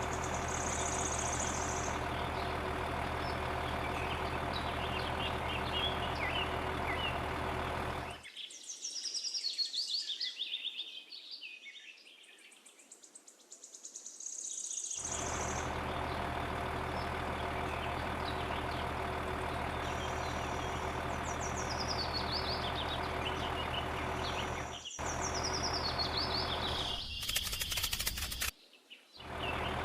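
Steady low mechanical hum with birds chirping over it in short, falling high-pitched calls. The hum drops out for several seconds about eight seconds in, and briefly twice near the end.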